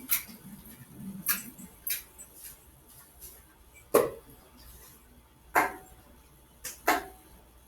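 A series of sharp clicks and knocks at irregular intervals, like small objects being handled and set down on a desk, with the loudest knock about four seconds in.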